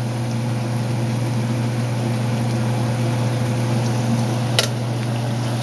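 Corn tortillas sizzling steadily in hot vegetable oil in a frying pan, over a steady low hum. A single sharp click about four and a half seconds in, like the metal tongs tapping the pan.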